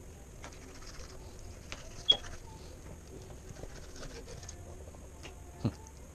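Fillet knife working on a rainbow trout fillet against a plastic cutting board: scattered faint clicks and scrapes, with one sharp click about two seconds in and a dull knock near the end.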